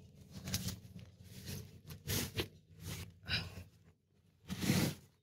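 A tow strap pinned under a chicken coop's wooden base being tugged and worked by hand: a series of short rustling scrapes of strap on wood and dirt, the loudest near the end.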